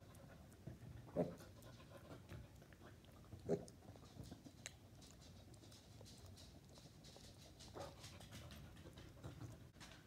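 Beagle panting faintly, with three short low sounds: about a second in, at about three and a half seconds, and near eight seconds.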